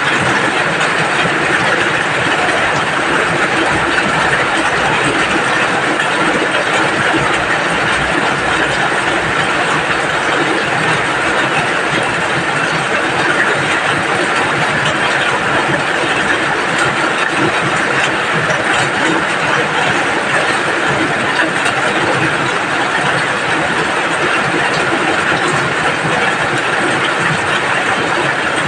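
Steady rain falling, a loud, even patter with no let-up.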